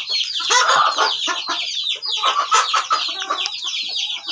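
Chickens clucking, over a constant dense chatter of high, rapid chirps.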